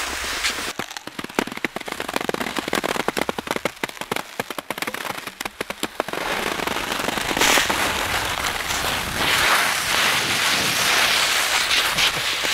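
Cross-country skis and poles crunching and scraping over firm, frozen-crusted spring snow. Dense irregular crackling comes first, then from about halfway through it turns into a steadier, louder hiss of gliding.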